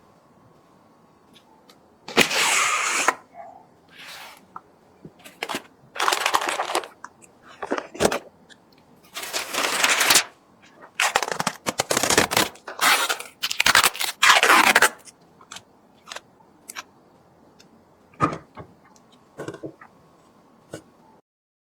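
PC parts being handled and fitted by hand: an irregular run of sharp clicks and scraping, rustling bursts about half a second to a second long.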